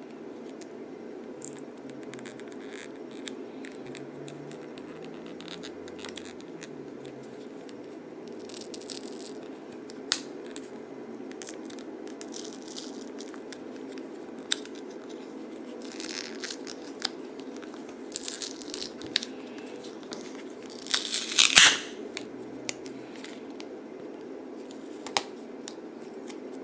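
Glued back cover of a U8 smartwatch being pried and peeled off with a pin: scattered small clicks and scrapes over a steady low hum, with a loud tearing crackle about 21 seconds in as the adhesive gives way.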